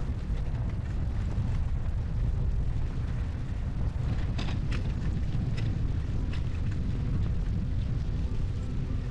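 Strong wind buffeting the microphone in a snowstorm, a steady low rumble, with a few faint clicks about four and a half seconds in.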